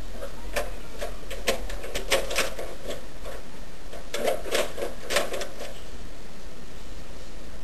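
Metal key sliding into and turning in a rim door lock: a run of sharp metallic clicks and rattles, in two bursts, over a steady background hiss and low hum.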